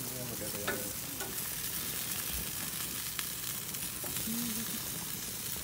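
Chicken pieces and minced-meat kebabs sizzling on a hot gas barbecue grill, a steady hiss of fat and juices on the grates.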